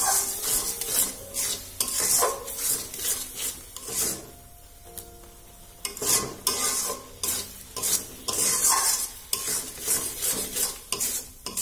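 Metal spatula scraping and stirring grated carrot halwa in a metal karahi, in repeated strokes over a sizzle as the mixture cooks down with sugar. The stirring pauses for about two seconds near the middle.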